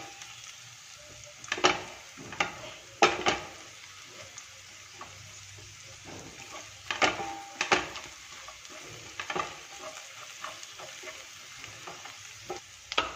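Cumin seeds, garlic and green chillies frying in hot ghee and oil in a stainless-steel pan, sizzling steadily while a silicone spatula stirs them, scraping and knocking against the pan now and then.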